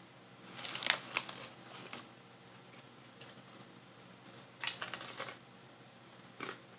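Close-up eating sounds: two short bursts of wet smacking and light rustling, about half a second in and again around five seconds, as greasy fingers are sucked and licked clean.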